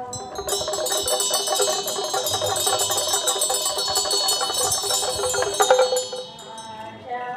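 Metal percussion of a Tibetan Buddhist cham ritual ensemble, ringing in a fast, dense roll that builds to a loud clash about six seconds in and then stops short. A steady, held drone sounds beneath it and comes back clearly near the end.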